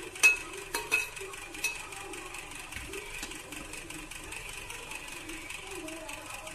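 A perforated steel spoon clinks against an aluminium pot four times in the first two seconds as cooked rice is spread over the fish masala. Each clink is sharp and briefly rings. After that there is only a faint, steady background.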